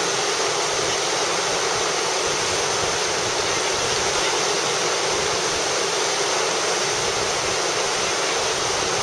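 Whitewater rushing through a river rapid: a steady, unbroken hiss of churning water.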